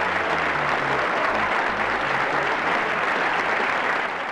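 Crowd applauding, with the bass notes of background music stopping about halfway through; the applause begins to fade out near the end.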